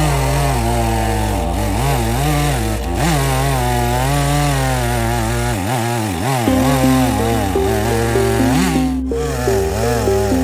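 A chainsaw in a chainsaw-mill attachment cutting wood, its pitch wavering up and down under load. Background music with a steady bass line plays along, with a stepped melody entering about six seconds in.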